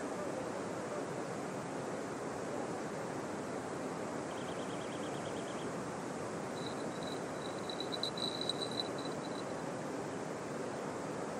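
Steady rushing outdoor noise by a river, with a short fast ticking about four seconds in and a run of high chirps in the middle.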